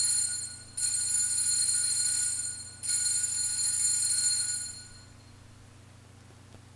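Altar bell rung at the elevation of the consecrated host: high, sustained metallic ringing in three rings of about two seconds each. The last ring fades out about five seconds in.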